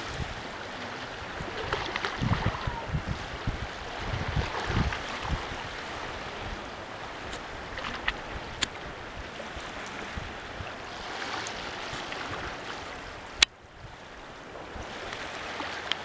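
Small waves washing on the beach, a steady rushing, with wind buffeting the microphone during the first few seconds. A single sharp click comes near the end, after which the sound briefly drops lower.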